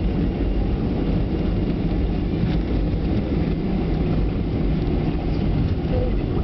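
Steady rumbling cabin noise of a Boeing 737-500 rolling out on the runway just after touchdown, heard from a seat over the wing: engine and airflow roar at an even level.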